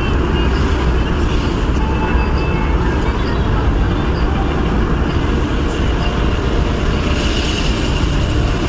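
Steady driving noise of a car moving in rain: a deep rumble of engine and tyres on a wet road, with an even hiss over it.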